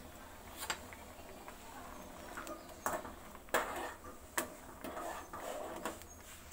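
A steel spoon stirring curry in a metal cooking pot, clinking and scraping against the pot several times.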